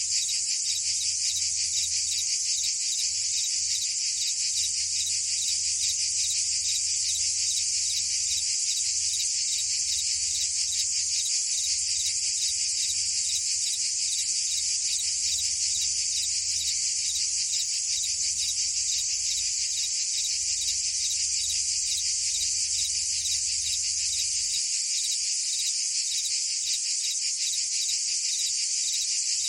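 Dense, continuous chorus of cicadas and crickets: a steady high-pitched buzzing trill with a very fast, fine pulse, unchanging throughout.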